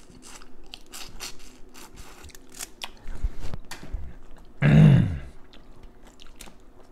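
A run of small sharp clicks and crunches from handling food or containers at the table, with one loud, short, low thud a little under five seconds in.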